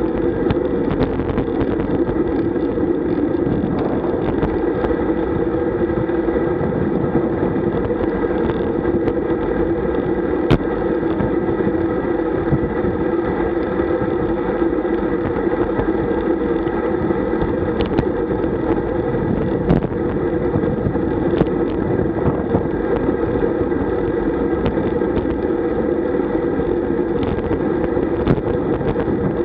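Steady rumble of wind and tyre noise from a road bike riding at about 35–40 km/h, picked up by a bike-mounted camera, with a few short sharp knocks.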